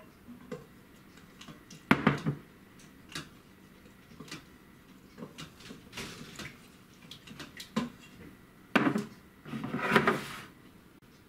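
A wooden spoon stirring tomato sauce in an Instant Pot's stainless steel inner pot, with light knocks of the spoon against the pot. Near the end come a few louder clatters of bowls and cups being set down on a countertop.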